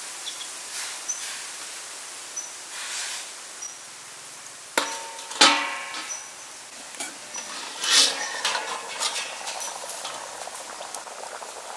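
Metal kitchenware sounds from a steel wok of rice soaking in water: a few soft scrapes and stirs of a metal spatula, then a stainless steel lid set down on the wok with two ringing clangs about five seconds in, and a further rattling clatter a few seconds later.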